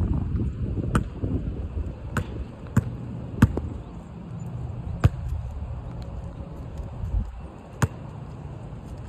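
Basketball bouncing on asphalt: about six sharp bounces at uneven intervals, with a steady low wind rumble on the microphone.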